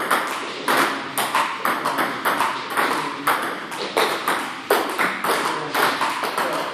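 Table tennis forehand rally: the celluloid ball clicking off rubber paddles and bouncing on the table in a quick, steady rhythm, several sharp clicks a second, often in close pairs of hit and bounce, each with a short echo.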